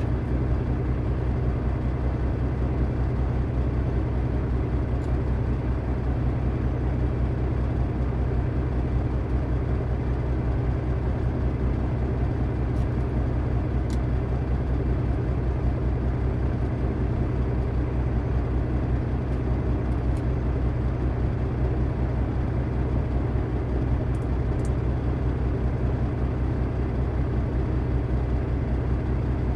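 Diesel engine idling steadily, a constant low drone. A few faint clicks from small plastic brick pieces being handled come now and then.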